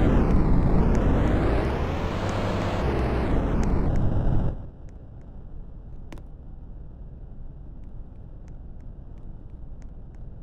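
Siren wailing, its pitch sweeping down and then up over a loud rumble. It cuts off abruptly about four and a half seconds in, leaving a low steady rumble with a few faint clicks.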